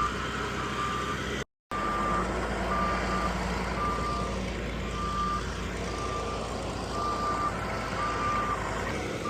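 A vehicle's reversing alarm beeping about once a second, a single steady high tone, over a steady low engine rumble. The sound cuts out briefly about a second and a half in.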